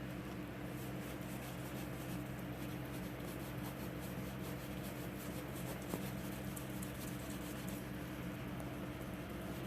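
A scrubbing towel rubbed back and forth over a yellowed, oxidized plastic headlight lens, a soft steady scratchy rubbing. A low steady hum runs underneath.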